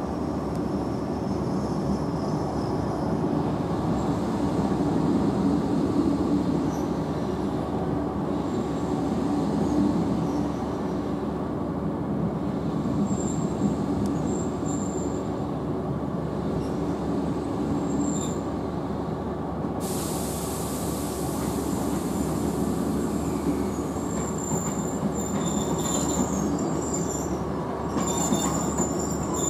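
Class 150 'Sprinter' diesel multiple unit heard from inside the carriage: the steady running noise of its diesel engine and wheels on the rails. Short, thin, high wheel squeals come and go in the second half.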